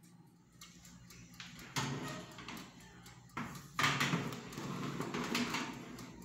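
Metal baking pan sliding into a small countertop electric oven, scraping and knocking against the wire rack in a few irregular clatters as it is pushed in.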